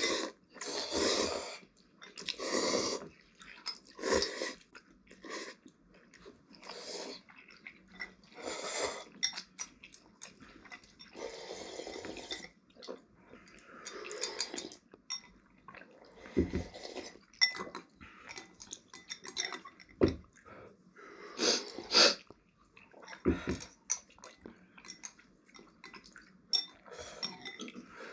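Two people eating instant noodle soup with chopsticks: irregular loud slurps of noodles and broth from bowls, with chewing in between and a few sharp knocks.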